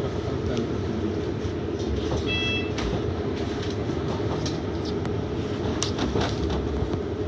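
Double-decker bus heard from inside: a steady low engine and road rumble with light rattles and clicks, and a brief high tone about two and a half seconds in.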